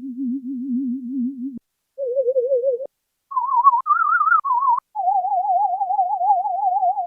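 Roland SH-01 Gaia synthesizer playing a programmed human-whistle patch: a near-pure tone with a steady vibrato. A low held note stops about a second and a half in, then notes follow at higher pitches with short gaps between, ending on a long held note.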